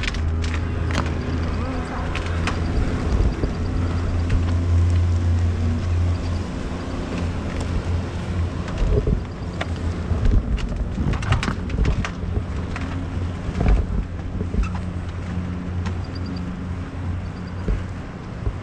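Small passenger ferry's engine running with a steady low hum, which eases off about six seconds in, with scattered knocks and clicks over it.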